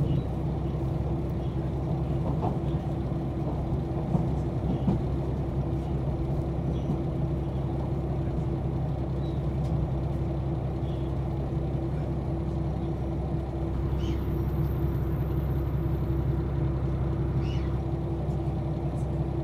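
Steady drone and running noise inside the cabin of a KiHa 261 series diesel railcar, a low engine hum under an even rumble, with a few faint clicks.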